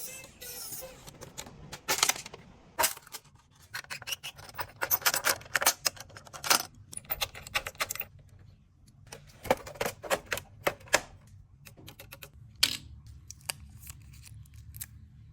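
Irregular clicks, taps and rattles of small tools and parts being handled while a PS5 console is worked on, at times in quick runs of ticks, over a steady low hum.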